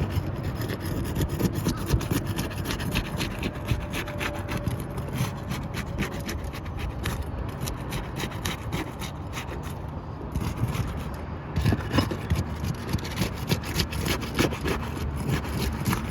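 Asphalt shingles being pried and scraped loose from their adhesive sealant strips: a continuous, irregular rasping and tearing.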